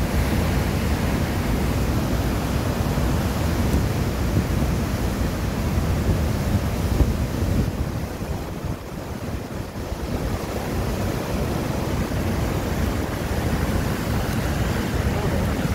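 Steady rushing water noise, heaviest at the low end, typical of a fast mountain river, with wind buffeting the microphone.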